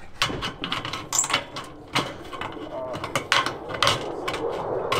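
Hand aviation snips cutting thin painted sheet-metal roofing trim along a marked line, a run of sharp snipping clicks about two to three a second.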